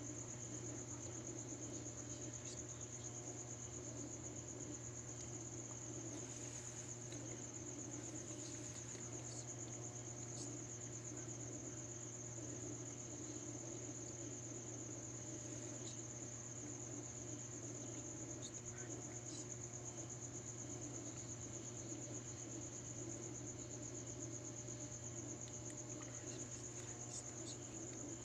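Crickets chirping in one continuous high trill, with a steady low hum underneath.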